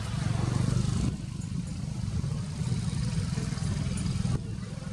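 A steady low engine rumble, as of a motor vehicle running nearby, a little louder in the first second.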